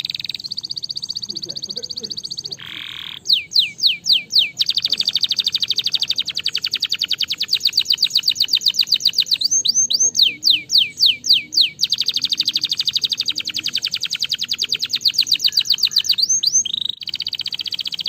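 Domestic canary singing a long song of fast trills, runs of rapidly repeated high notes. Twice, about three seconds in and again near the middle, it switches to slower, louder notes that each sweep down in pitch, about four a second.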